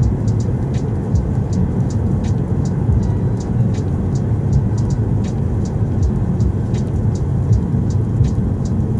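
Steady low road and engine rumble heard inside a car cruising at motorway speed, with light, irregular high ticks scattered through it.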